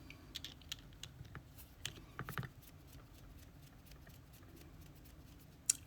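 Faint, light clicks and taps from handling an ASSA Twin Exclusive lock and picking tools by hand: several in the first two and a half seconds, then one more near the end.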